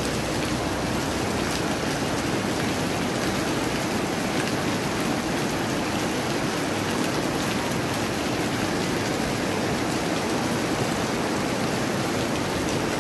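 Heavy rain pouring steadily onto a flooded street, a constant hiss of drops splashing into standing water.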